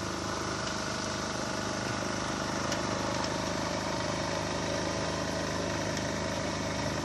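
An engine running steadily at idle, a constant hum with even tones and no change in speed.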